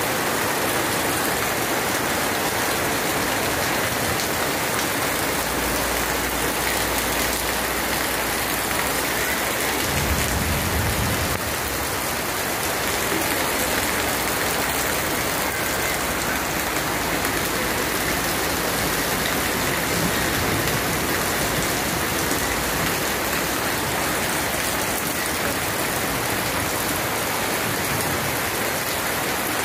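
Heavy rain falling onto standing floodwater, a steady hiss. A short low rumble comes about ten seconds in.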